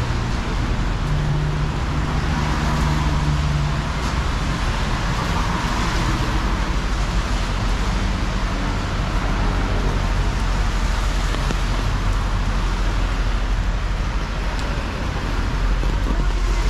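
Rainy city street ambience: steady traffic noise of vehicles on wet roads, with a low engine hum in the first few seconds.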